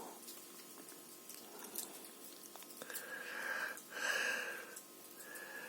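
Faint crackling of a wood campfire, a few small pops and snaps. From about three seconds in, a breathy hiss with a steady whistling tone comes in twice.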